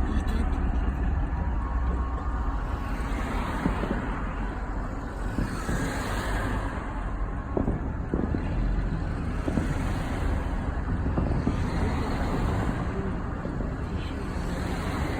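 Steady outdoor city background noise with a low rumble and a few faint ticks.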